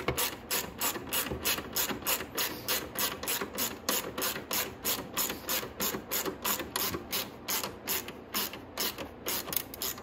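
Hand ratchet wrench clicking as a lower fairing bolt on a 125cc motorcycle is driven in: a steady run of sharp clicks, about three or four a second, that stops near the end.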